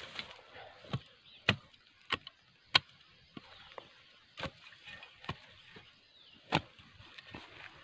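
Shovel and machete blows chopping into soil: about ten sharp strikes at irregular intervals, the loudest a little under 3 s in.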